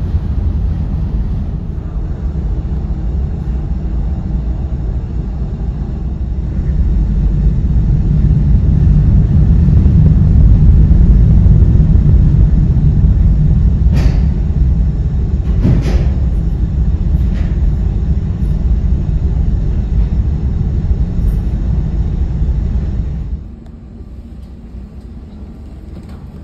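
The ferry's engines and machinery rumbling, a loud, steady low rumble that swells in the middle and drops away sharply near the end. A few sharp clicks come about halfway through.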